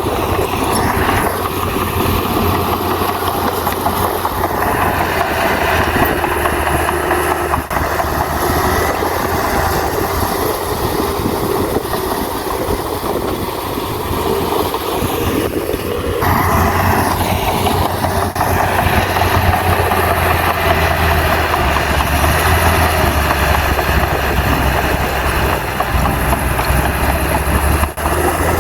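Crawler bulldozer's diesel engine running under load, with the rumble and clatter of its steel tracks. The engine's low hum gets louder about halfway through.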